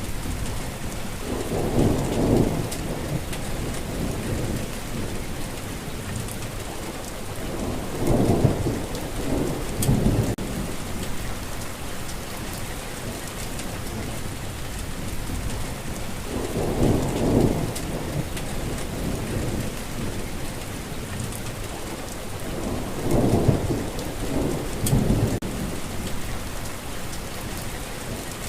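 Steady rain falling, with low rolls of thunder swelling up and fading four times, some in two pulses.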